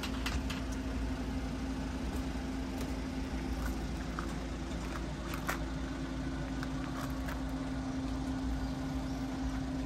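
Steady mechanical hum: a constant tone over a low rumble that does not change, with a few faint clicks here and there.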